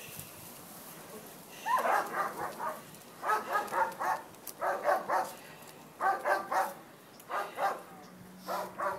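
A dog barking in short quick runs, starting a little under two seconds in and repeating every second or so.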